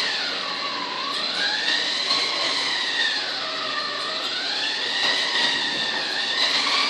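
Whine of a battery-powered toy drift car's small electric motor, its pitch falling and rising twice as the car slows and speeds up.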